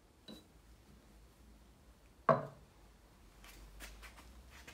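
A metal container set down on a wooden tabletop with one sharp knock and a short ring about two seconds in, after a lighter tap at the start. Faint clicks of handling follow as a can is picked up.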